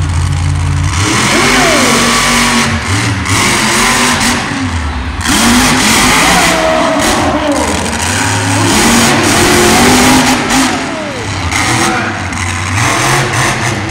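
Monster truck engine at full throttle on a drag run, revving up and down repeatedly as the truck launches and goes over the dirt jumps. It gets loud about a second in.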